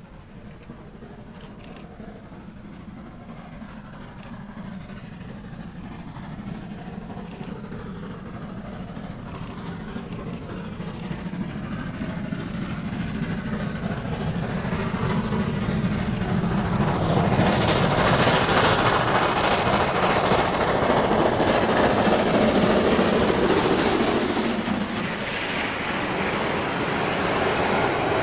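Steam locomotive hauling a freight train of covered sliding-wall wagons approaches, growing steadily louder, and passes at its loudest about two-thirds of the way through. Its wagons then keep rolling past.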